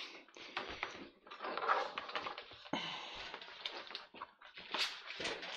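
Hook-and-loop straps of a plastic back brace being torn open in several crackling rips, with knocks and scraping as the rigid front shell is lifted away from the body.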